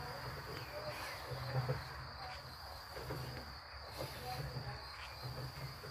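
Crickets chirring steadily in the background, with faint low pulses about once a second.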